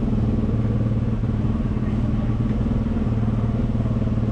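A steady, low engine drone holding one constant pitch.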